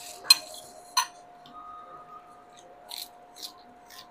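Eating with a metal spoon: two sharp clinks of the spoon, the first the loudest, followed by soft chewing and mouth noises, over a faint steady hum.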